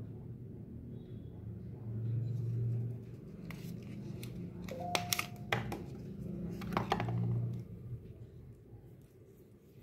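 Hands handling earphone packaging, sliding a sleeve off a small box and pulling out the earphones and their cable: rustling over a low rumble, with a run of sharp clicks and taps in the middle.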